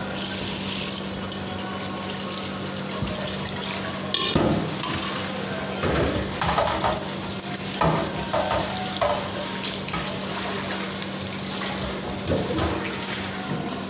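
Kitchen tap running into a stainless steel bowl in a steel sink, the water splashing as the bowl is rinsed, with a few knocks and clanks of the metal bowl against the sink.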